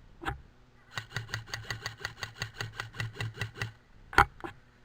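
Rapid rhythmic rattling of a loose helmet-mounted camera, about six knocks a second for nearly three seconds, with a single sharp click a little after four seconds.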